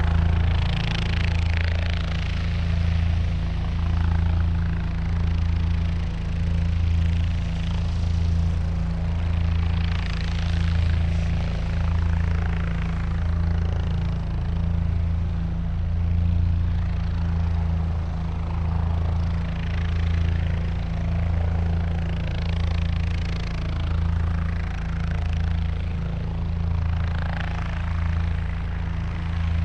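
Helicopter running steadily: a low drone from the engine and rotor with an even, regular pulse, under a rushing hiss that swells and fades every few seconds.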